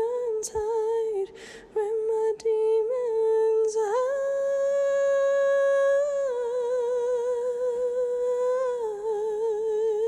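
A woman humming a melody unaccompanied. She hums short notes with brief breaks at first, holds a higher note for about two seconds, then drops back to lower notes with a wavering vibrato.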